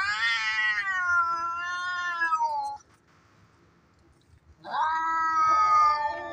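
A cat yowling in a fight. One long drawn-out wail rises sharply, then slowly falls and breaks off after nearly three seconds. After a short pause, a second long yowl starts.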